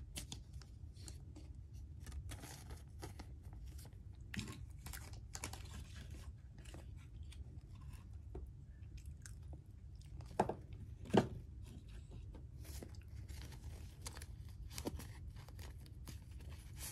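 Someone chewing crunchy chips close to the microphone: scattered crunches and crackles, with two louder crunches about ten and eleven seconds in, over a low steady hum.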